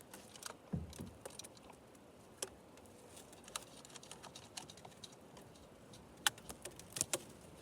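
Scattered light clicks and small metallic taps at irregular intervals, with a soft thump about a second in: chainsaw bar, chain and clutch-cover parts being handled and fitted during assembly.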